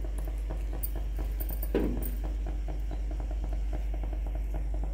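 Pot of rice simmering in chicken broth: a fast, uneven patter of small bubbling pops over a low steady hum.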